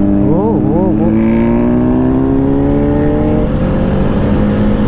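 Motorcycle engine blipped a few times, then pulling with its pitch climbing slowly as the bike accelerates.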